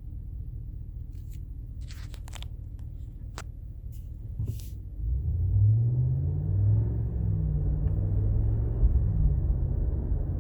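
Cabin noise of a 2019 Ram 1500 pickup driving in 4WD Auto: a low rumble with a few sharp clicks, then about five seconds in it gets louder with a low, wavering groan. This is the driveline groaning that the owner hears under throttle and in turns, a fault he believes is in the 4WD Auto system.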